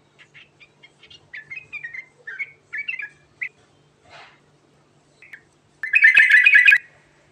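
Yellow-vented bulbul (trucukan) singing: a run of short bubbly notes over the first three and a half seconds, then a loud rapid chattering burst lasting about a second near the end.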